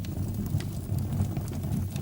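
Wood burning in a fireplace: irregular crackles and pops over a low, steady rumble of the flames.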